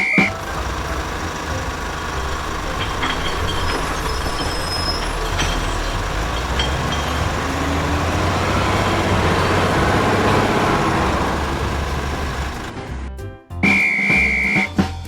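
Heavy vehicle engine running with a steady low rumble and hiss. A high, steady whistle note sounds briefly at the very start and again near the end.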